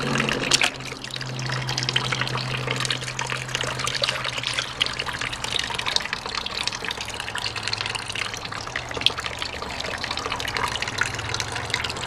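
Water running and trickling into a small custom-built toilet bowl during a flush that has clogged on two sheets of toilet paper. A steady low hum runs underneath and drops slightly in pitch about seven seconds in.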